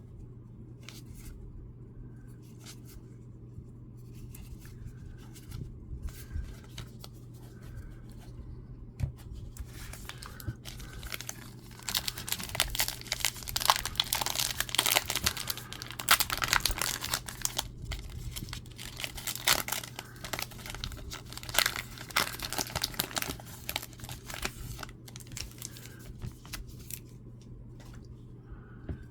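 Foil wrapper of a baseball card pack being torn open and crinkled. The crackling is densest through the middle, with lighter scattered clicks and rustles before and after.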